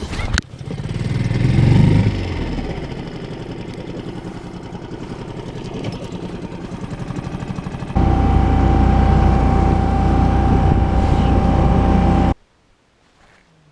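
Outboard motor on a small boat speeding up over the first couple of seconds, then running steadily. About eight seconds in it turns louder with a steady high whine, then cuts off abruptly about a second before the end.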